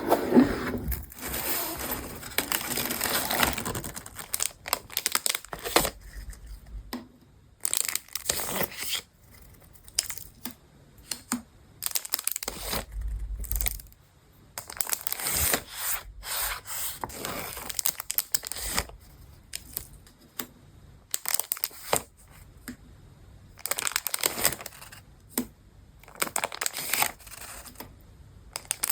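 Close-up handling and unwrapping of packaged paper crafts supplies: plastic wrapping and paper crinkling, rustling and tearing in short, irregular bursts, with small taps and clicks between them.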